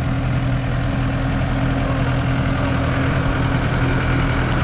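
A large vehicle's engine idling steadily at an even pitch.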